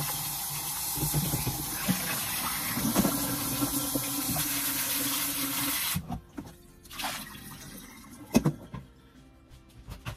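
Kitchen tap running into a stainless steel bowl of asparagus in a steel sink, with hands swishing the spears in the water. The flow cuts off abruptly about six seconds in, followed by a few clicks and one sharp knock.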